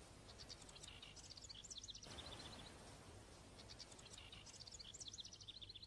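Faint birdsong: runs of quick, high chirps and trills with a short pause about halfway, over a light hiss.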